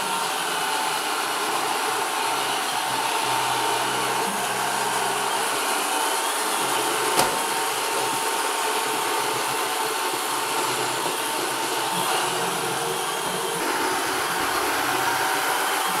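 2004 iRobot Roomba Sage (Discovery series) robot vacuum cleaning carpet: its vacuum motor and brushes run steadily with a thin whine. About seven seconds in its bumper knocks once against furniture.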